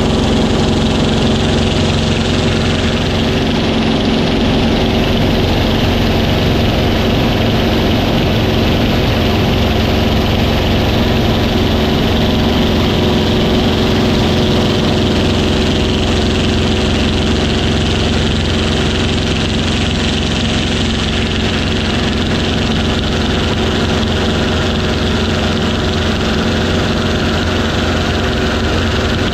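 Yak-3 fighter's piston engine heard from inside the cockpit, running at a steady power setting as a constant loud drone with rushing noise over it.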